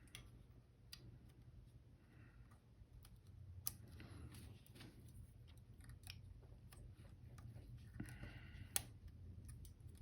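Faint, scattered small clicks and ticks of tiny parts being handled inside a Canon A-1 camera while a small spring on the power switch contact is aligned, with a sharper click a little under four seconds in and another near nine seconds, over a low steady hum.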